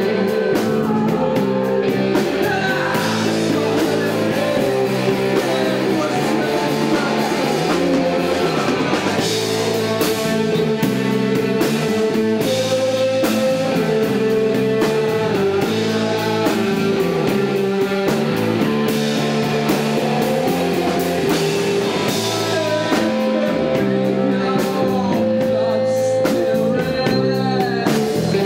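Rock band playing with electric guitar, drum kit and singing, steady and loud throughout.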